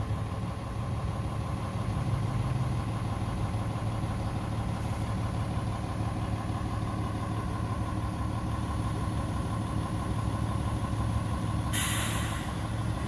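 Heavy diesel engine running at a steady speed, with a short hiss of air about a second before the end.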